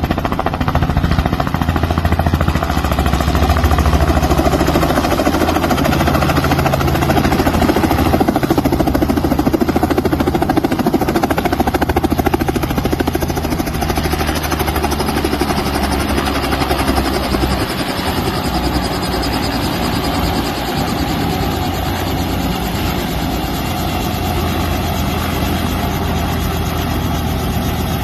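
Small helicopter landing and then running on the pad with its main rotor turning: a steady, rhythmic beat of the blades over the engine. The sound eases a little about two-thirds of the way through.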